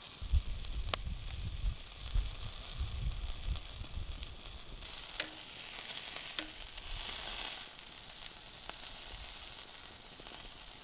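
Sausage sizzling on a steel grill grate over hot embers, a steady hiss of frying fat, with a few sharp clicks as metal tongs touch the grate and a low rumble over the first few seconds.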